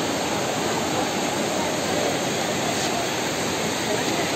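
Shallow mountain river of snowmelt water rushing over and between rocks, a steady unbroken wash of water noise.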